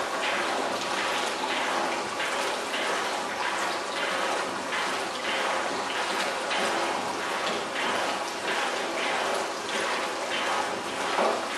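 Steady rush of running and splashing water from a stainless-steel potato-processing machine, with uneven surges about once or twice a second.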